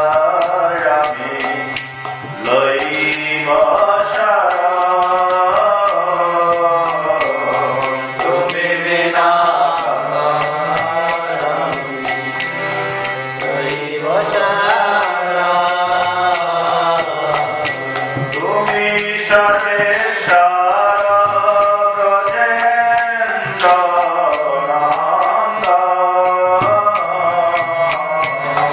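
A man chanting a devotional mantra in a slow, sung melody of long held and gliding notes, picked up close by a headset microphone. A fast, even beat of light metallic strikes runs beneath the chant.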